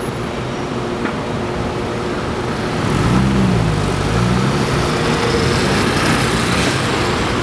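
City street traffic noise. About three seconds in it gets louder as a vehicle engine revs up and eases off, its pitch rising and falling.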